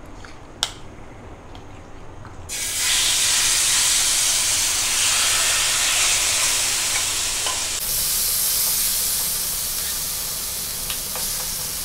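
Marinated chicken strips hitting hot oil in a steel kadai: a loud, steady sizzle starts suddenly about two and a half seconds in and keeps going as the pieces are stirred, easing slightly toward the end.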